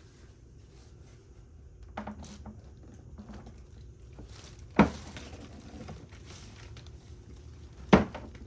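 Handling noise from tipping a WEN generator to drain its oil: light clinks and plastic crinkling, with two sharp knocks about five seconds and eight seconds in as the metal casing is bumped or set down.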